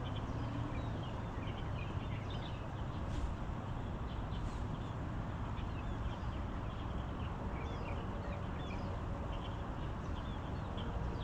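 Many small birds chirping over a steady low rumble.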